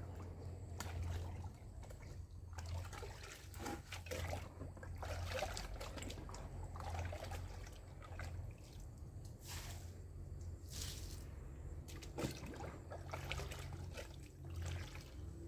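Liquid in a bucket being scooped and stirred with a long-handled dipper: irregular trickling and splashing, over a low steady hum.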